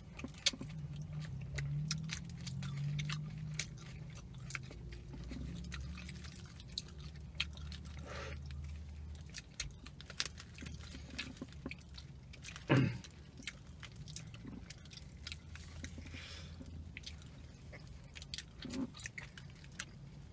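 Two people chewing and biting into a chicken burrito and shrimp tacos, with many small wet mouth clicks throughout. A short voice sound falling in pitch comes about thirteen seconds in.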